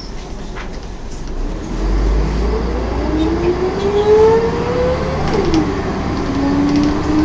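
Volvo B10M bus's ZF automatic gearbox whining as the bus accelerates, heard from inside the bus over the engine: the whine climbs in pitch, falls away at a gear change about five seconds in, then starts climbing again.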